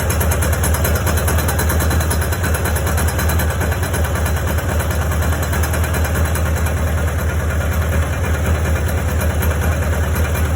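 1992 Kawasaki Ninja ZX-7's inline-four engine idling steadily with a knock in it, which the owner suspects comes from the top end, perhaps a valve or the cam chain tensioner.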